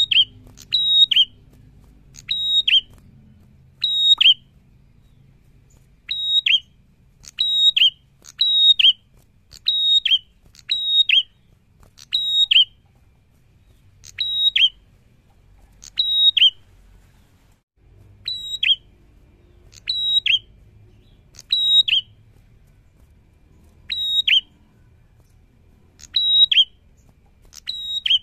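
A caged tailorbird (Indonesian 'prenjak') calling loudly and persistently: sharp, high whistled notes that drop slightly at the end, given in quick doubles and triples about once a second, with two short pauses.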